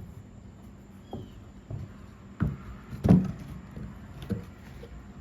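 Freshly sawn dogwood pieces knocking and clunking together as they are handled and opened up: a handful of separate wooden knocks, the loudest about three seconds in.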